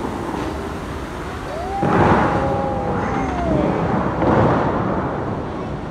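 Fountain water jets rush up in two loud bursts, about two seconds in and again a little past four seconds, over a steady background wash. A drawn-out tone slides slowly down in pitch during the first burst.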